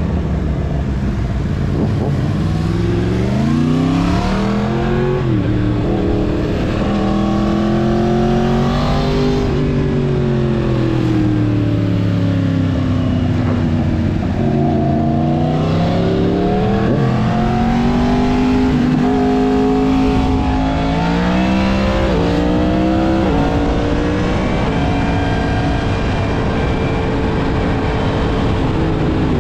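Yamaha MT-10's crossplane inline-four through a full Mivv exhaust, under way. The engine note climbs and falls repeatedly with throttle and gear changes, with several quick upshifts about two-thirds of the way in, then holds a steady pitch near the end.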